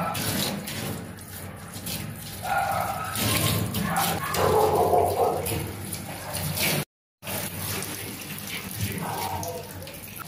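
Water from a handheld shower hose running and splashing over a dog's wet fur in a stainless-steel sink. The sound cuts out completely for a moment about seven seconds in.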